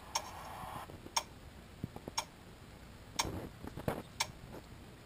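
A clock ticking quietly and evenly, about one tick a second.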